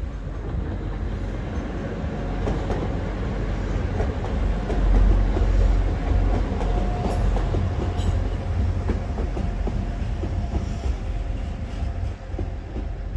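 Class 175 diesel multiple unit passing over a level crossing: a low engine and wheel rumble with wheels clattering over the rail joints. The rumble is loudest about five seconds in and eases off toward the end.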